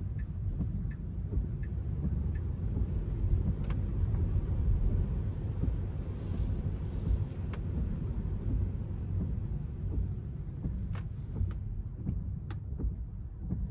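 Low road and tyre rumble inside a Tesla Model 3's cabin as it drives slowly on a wet road, with a few faint, scattered ticks.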